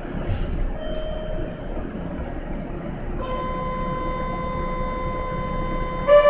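Station departure signal on the platform: a steady electronic tone sounds from about three seconds in, then a louder, slightly higher tone takes over near the end, over a low hum from the train standing at the platform.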